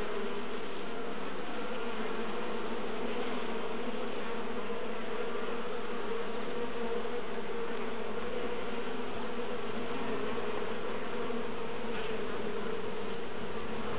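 Honeybee colony on an open brood frame buzzing: a steady, unbroken hum of many worker bees at once.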